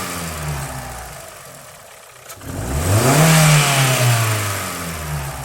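Volkswagen Gol G4 engine revved by blips of the throttle: falling back from one rev at first, then revved again about two and a half seconds in and easing back down. It carries a small noise that new tappets and rocker arms have not cured; mechanics suspect the camshaft or a piston.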